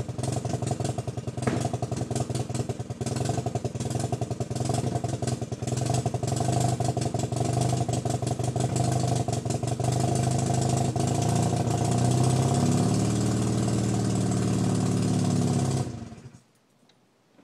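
Mazda RX-7's 13B rotary engine running at idle through an Apexi N1 dual exhaust with a test pipe in place of the catalytic converter. Its pitch wavers a little in the second half, and the engine stops about a second before the end.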